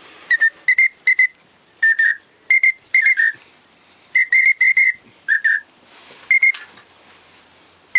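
Duck-hunting whistle call blown in short high chirps, singly and in quick pairs and triples with pauses between, some notes sliding down at the end: whistling to bring incoming ducks in to the blind.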